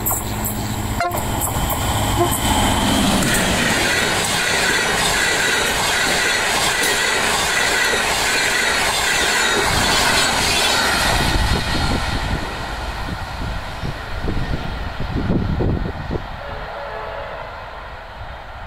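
Diesel-hauled passenger train passing close by: the locomotive comes up, then the carriages' wheels run over the rails, loud for about ten seconds before fading as the train moves away.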